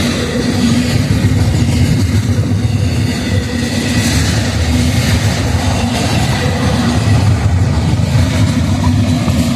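Train passing with a steady, loud low rumble.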